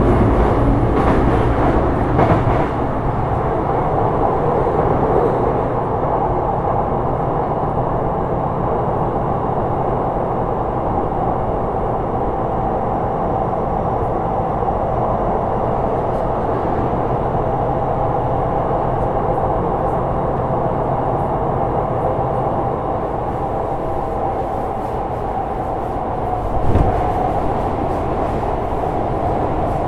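Sotetsu 12000 series electric multiple unit running steadily along the line, an even rumble of wheels on rail with a faint steady hum. A short thump about 27 seconds in.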